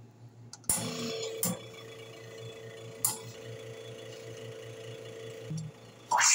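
Espresso machine pump humming steadily while an espresso shot pulls, switching on with a click about a second in and stopping shortly before the end. Then the steam wand opens with a loud hiss.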